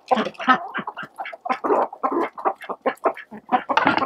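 Icelandic chickens clucking in a quick run of short calls, several a second, typical of the rooster's food call to his hens.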